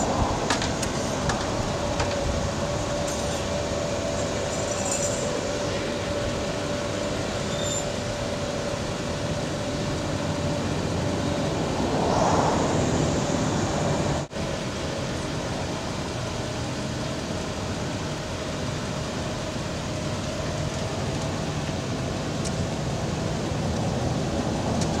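Bucket truck's engine running with its hydraulic pump whining steadily as the ETI aerial lift's boom is raised and swung out. The sound swells briefly about twelve seconds in and cuts out for an instant a couple of seconds later.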